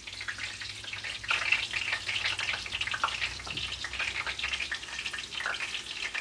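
Hot oil sizzling and crackling in a cast-iron skillet as egg rolls shallow-fry, a steady dense crackle.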